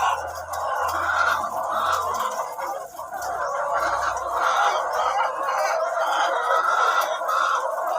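Flock of ready-to-lay pullets clucking and chattering together in a dense, continuous din.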